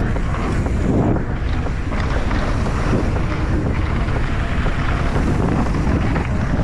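Heavy wind buffeting the microphone during a downhill mountain-bike run, with a steady low rumble throughout.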